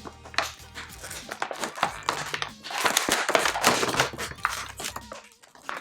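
Stiff plastic packaging crinkling and crackling as it is handled and pulled open, busiest in the middle and dying away near the end.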